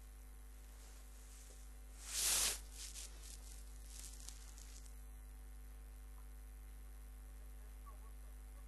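Steady low electrical mains hum on the recording, with one loud brief rush of noise about two seconds in, followed by a few faint clicks.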